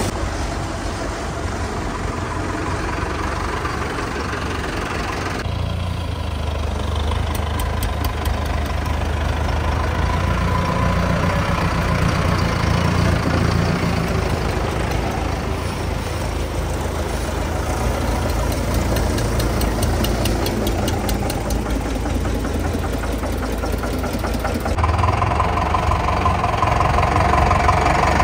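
Diesel tractor engines running with a low, steady rumble. The sound changes abruptly about five seconds in and again near the end.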